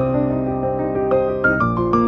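Background music: a gentle piano melody over held bass notes.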